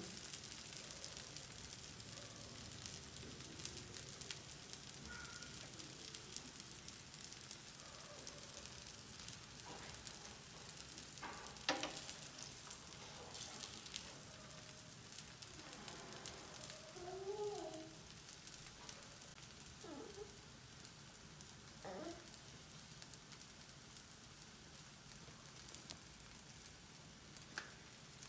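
Cassava dosa frying in oil on a hot iron tava: a steady, faint sizzle as the underside browns, with a few brief faint clicks.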